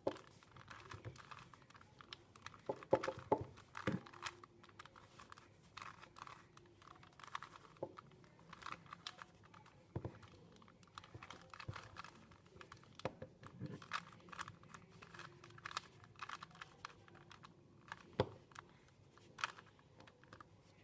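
3x3 Rubik's cube being turned by hand: faint, irregular plastic clicking and clacking of its layers rotating, with a few sharper clacks.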